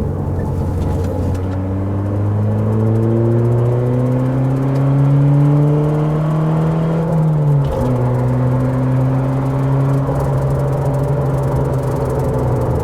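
Car engine heard from inside the cabin, its revs climbing slowly under acceleration for about seven seconds; then a gear change drops the pitch sharply and it runs on at steady revs.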